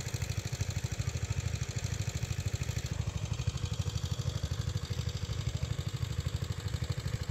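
An engine running steadily at idle, heard as a fast, even low throb.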